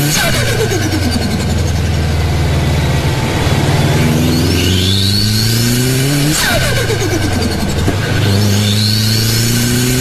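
Subaru WRX's turbocharged flat-four pulling hard through the gears, its pitch climbing with each pull. Twice, about six seconds in and near the end, the revs drop on lift-off with a short turbo flutter and a whine that falls away.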